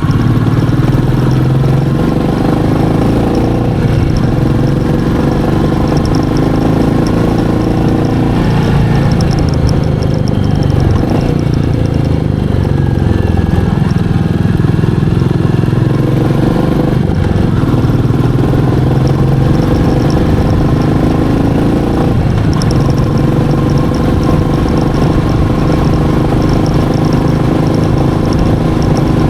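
Royal Enfield Meteor 350's single-cylinder engine and exhaust running on the move, the engine note rising and falling several times as the throttle opens and closes and gears change.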